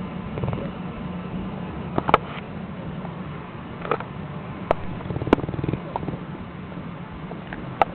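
Bullmastiff snoring in rattling breaths over the steady hum of a running treadmill. Several sharp clicks stand out louder than the snoring.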